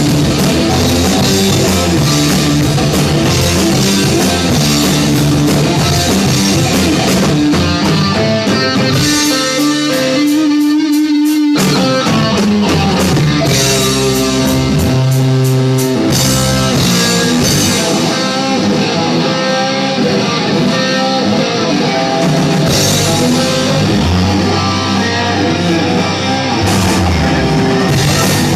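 Rock music: electric guitar playing over bass and a drum kit. The bass and drums drop out for a couple of seconds about nine seconds in, then the full band comes back in.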